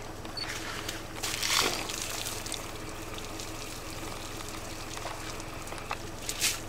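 African elephant spraying muddy water over itself with its trunk during a mudbath: two splashing bursts, about a second in and near the end, over a low steady hum.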